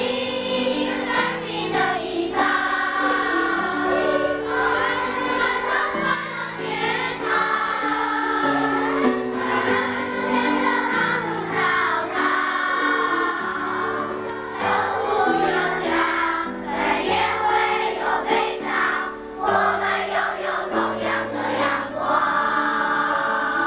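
A choir singing together over musical accompaniment, the voices sustained and continuous.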